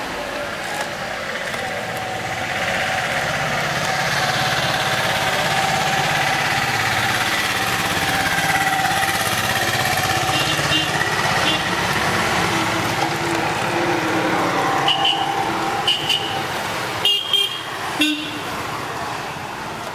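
Street traffic noise with vehicle horns. A long held horn tone runs through the first half, and short high beeps and a couple of sharp knocks come near the end.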